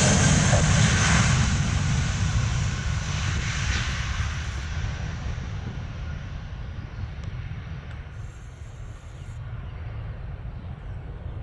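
Jet airliner engines at takeoff power, an Airbus A320, the roar loudest at first and fading steadily as it climbs away.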